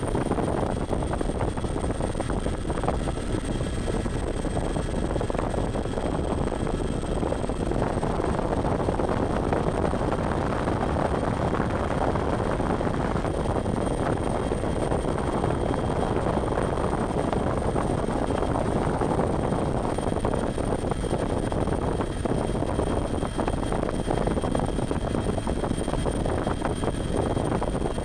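Bell 412 twin-turbine helicopter running steadily in flight: a constant, dense engine and rotor noise with a faint high steady whine over it.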